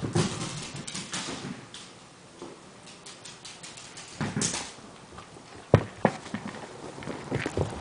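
A wire fox terrier's claws and paws pattering on a hardwood floor as it runs about, in uneven clusters of quick clicks and scuffs, with one sharp knock about two-thirds of the way through.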